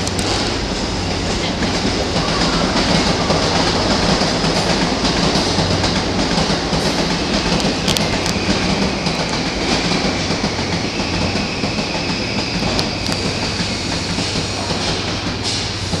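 A train running through the station, its wheels clattering over the rail joints, with a steady high whine that a second, lower whine joins about halfway through.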